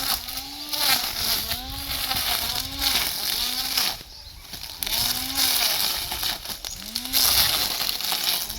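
Small petrol lawn mower engine running under load while cutting grass, its pitch rising and falling over and over, about once a second, with a hiss of cut grass and debris. The sound dips briefly about four seconds in.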